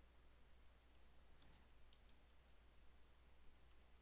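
Near silence: a few faint, scattered computer mouse clicks over a low steady electrical hum.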